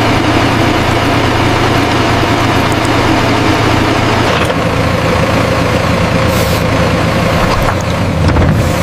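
Heavy construction machine's diesel engine running steadily, its note changing about four and a half seconds in, with a brief hiss around six and a half seconds and a low thump near the end.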